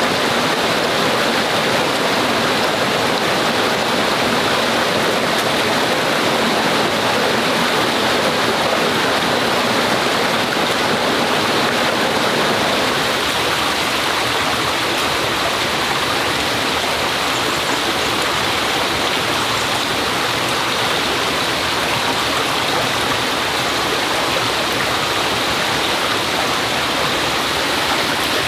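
Flowing stream water: a loud, steady rush of running water, whose deeper part eases a little about halfway through.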